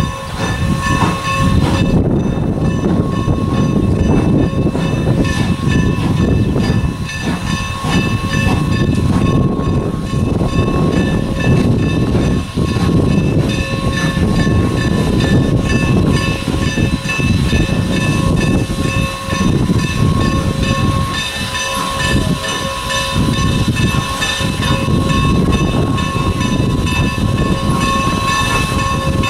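Norfolk & Western M-class 4-8-0 steam locomotive No. 475 working a freight train toward the listener: a steady loud rumble, with several faint steady high tones held above it.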